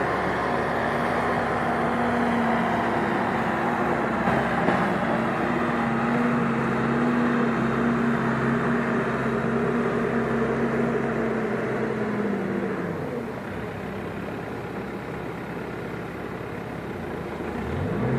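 Diesel engine of earth-moving machinery running at working revs. About thirteen seconds in its revs fall away, it runs lower and quieter for a few seconds, then it revs back up near the end.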